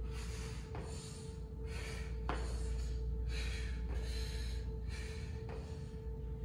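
A man breathing hard in short puffs while doing lunges, with a few knocks of his shoes on a hard floor, over quiet background music and a steady hum.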